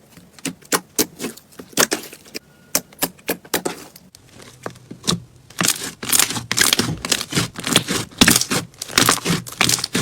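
Slime being squeezed and worked by hand, giving off quick, irregular clicking and crackling pops that come thicker and louder in the second half.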